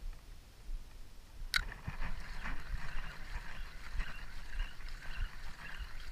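Water splashing and lapping at the side of a small boat, with a sharp click about a second and a half in and repeated low knocks against the hull.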